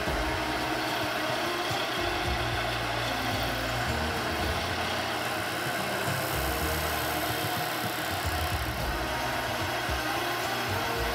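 Bench disc sander running steadily while a small wooden drawer pull is held against the spinning sanding disc, grinding its end into a rounded half-circle.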